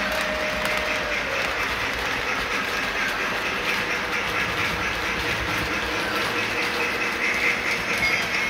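Model train running around its track layout: a steady whir and clatter of the motor and wheels on the rails.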